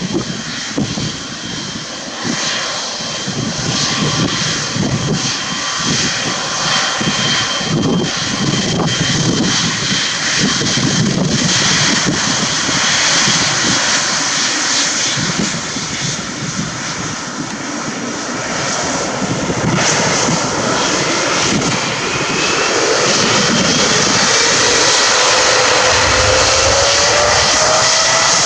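Jet airliner taking off: loud, rumbling engine noise that swells and grows louder, with a whine rising in pitch over the last several seconds.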